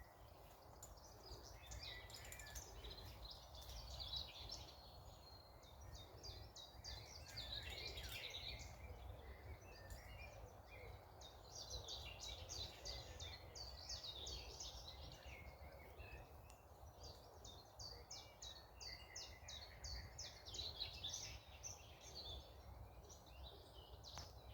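Faint songbird chorus: many quick, high chirping and trilling notes, busiest in long runs, over a steady low rumble.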